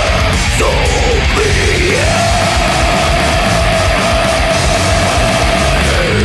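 Death metal recording, loud and dense throughout. A sliding high note settles, about two seconds in, into one long held note over the rest of the band.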